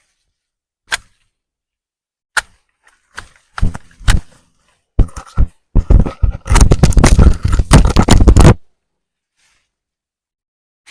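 Weeds and overgrown grass being cleared: a few separate sharp snaps or strikes, then a dense run of crunching and tearing for about three seconds that stops suddenly.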